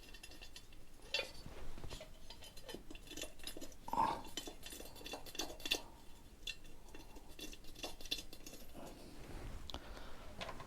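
Small steel bolts and washers clinking and clicking as they are handled, a scatter of light metallic taps, the loudest about four seconds in.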